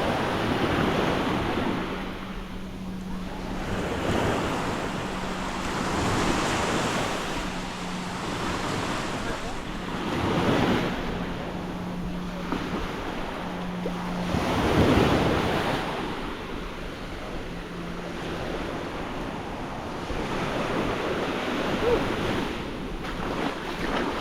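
Small waves washing onto a sandy beach, swelling and fading every few seconds, with the biggest surge about fifteen seconds in. Wind buffets the microphone, and a faint low steady hum comes and goes underneath.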